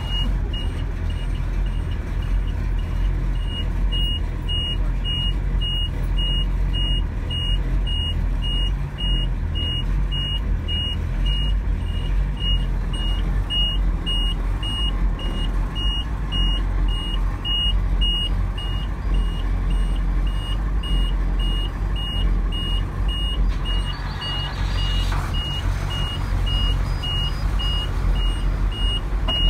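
Chevrolet school bus's 8.2 L Detroit Diesel V8 running at a steady idle just after a cold start. Over it a high-pitched cab warning beeper sounds about twice a second, stopping briefly twice.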